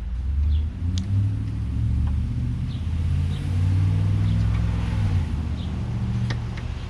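A low engine rumble, like a motor vehicle passing, swells about half a second in and fades after about five seconds. A few light clicks and faint bird chirps sound over it.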